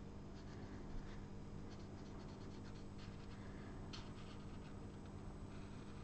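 Faint scratching of a Stampin' Blends alcohol marker's nib on cardstock while a small stamped image is coloured in, with a couple of light ticks from the pen.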